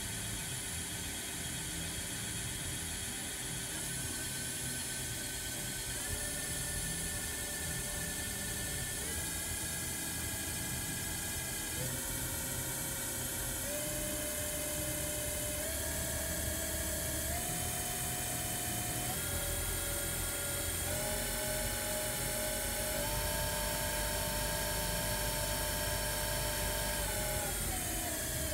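Super Kia Turn SKT-21V CNC lathe spindle running forward: its drive whine steps up in pitch every two seconds or so as the spindle speed is raised, then glides down near the end as the spindle slows.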